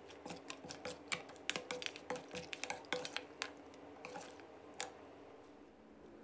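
A metal spoon clicks and scrapes against a stainless steel bowl while a dressed shredded green mango salad is tossed. The faint clicks come thick and fast for the first three seconds or so, then thin out, with one last sharper click about five seconds in.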